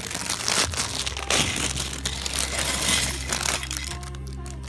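Lego set packaging being opened: cardboard box and plastic parts bags crinkling and crunching in dense crackles that thin out near the end.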